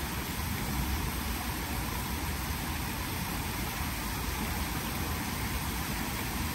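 Steady rush of falling water from a small artificial rock waterfall splashing into its pool.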